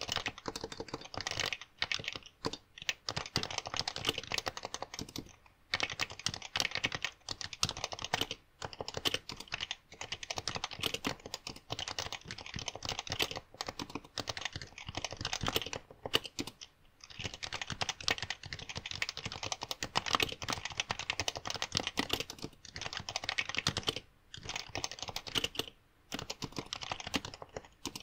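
Fast, continuous typing on a Happy Hacking Keyboard (HHKB): a dense run of keystrokes with a few short breaks of under a second, recorded through a phone headset microphone.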